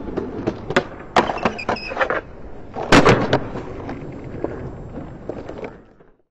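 Skateboard wheels rolling over paving slabs, with sharp clacks of the board hitting the ground, the loudest cluster about three seconds in. The sound cuts off suddenly just before the end.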